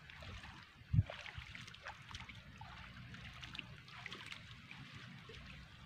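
Water splashing and trickling as a seine net is hauled through shallow pond water, with a dull thump about a second in.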